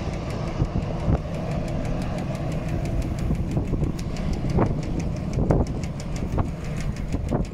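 Airbus airliner's jet engines running at taxi power, a steady low rumble, mixed with wind buffeting the microphone.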